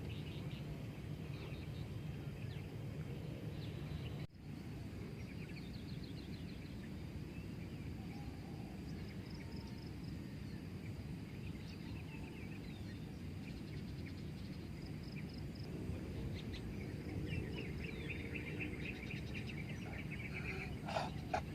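Outdoor nature ambience: a steady low rumble with birds chirping and trilling on and off. A few sharp clicks sound near the end.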